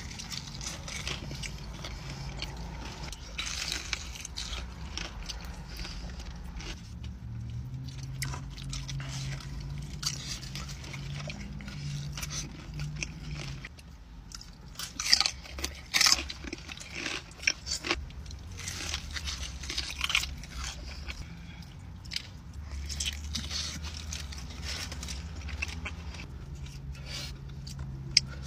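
Close-up biting and chewing of crispy fried hot-chicken tenders dipped in ranch, with irregular sharp crunches, loudest in a cluster about halfway through. A low steady hum runs underneath.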